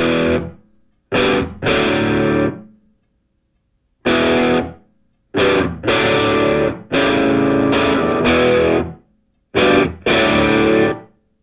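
Music: distorted electric guitar playing in stop-start bursts, with short silent gaps between them and one longer held passage in the middle.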